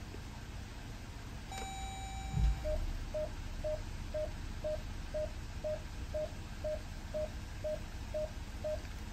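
Jeep Grand Cherokee cabin: a single chime as the transmission goes into reverse, then the rear parking-sensor warning beeping steadily about twice a second. The low hum of the idling engine runs underneath.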